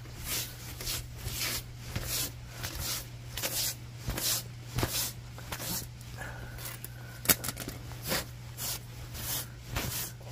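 Wire-mesh grill grate being scrubbed with a wet sponge on concrete: repeated rasping strokes, about one to two a second, with a brief pause and a single sharp click about seven seconds in.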